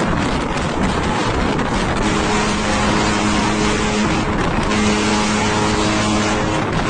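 Motorboat engine running at steady speed amid rushing wind and water noise, its steady hum standing out about two seconds in.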